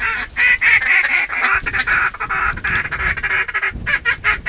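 Duck calls blown by hunters in a blind: a fast, continuous string of loud quacks and chatter, breaking into slower separate quacks near the end.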